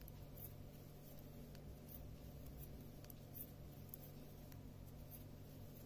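Knitting needles clicking faintly and unevenly as a row of stitches is knitted, over a steady low hum.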